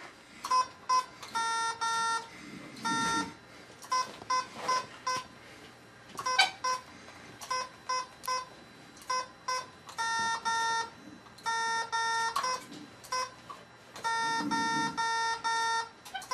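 Beeps from a head-switch Morse code communication system: a buzzy tone sounding in short and long pulses, the dots and dashes of Morse code, in irregular groups as the user spells out text letter by letter.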